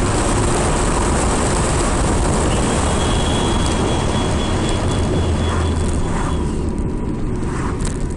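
BMW E46 330ci on the move, its 3.0-litre straight-six engine running under steady road and engine noise, easing off slightly near the end.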